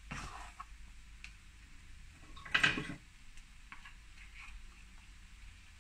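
Cooking utensils scraping and knocking against a non-stick frying pan as chicken pieces are turned, with one louder scrape about two and a half seconds in and a few light ticks between.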